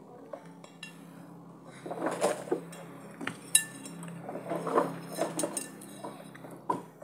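Metal spoon clinking and scraping against a ceramic plate, a scatter of sharp clinks with the loudest about three and a half seconds in.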